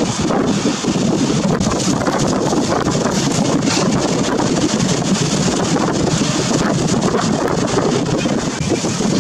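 Wind buffeting the microphone: a steady, loud rush and rumble.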